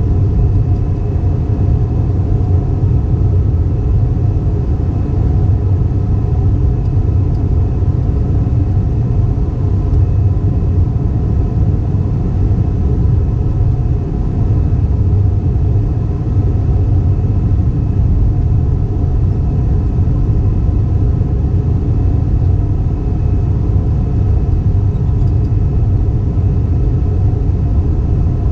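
Steady low rumble inside the cabin of an Airbus A320 in flight: engine and airflow noise, with faint steady tones above it.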